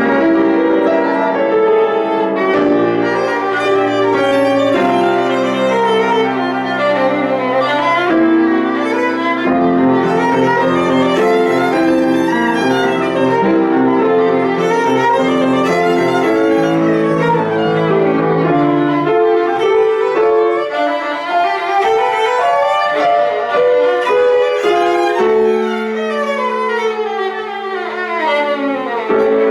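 Violin playing quick rising and falling runs of notes over a piano accompaniment that holds low bass notes.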